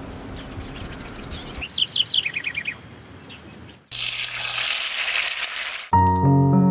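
Birds chirping over outdoor ambience, with a quick falling run of chirps about two seconds in. About four seconds in, oil and butter start sizzling in a hot steel frying pan. Piano music comes in near the end.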